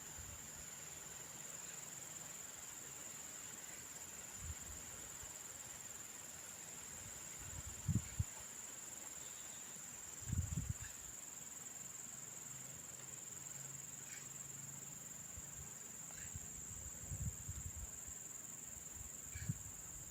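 Insects, crickets or cicadas, keeping up a steady high-pitched drone. A few dull low bumps come about 8 and 10 seconds in.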